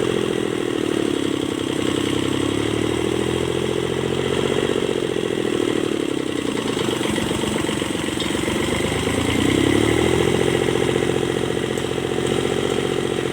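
Kubota D905 three-cylinder diesel engine running steadily, its speed slowly sagging and picking up again several times, lowest and roughest about two-thirds of the way through.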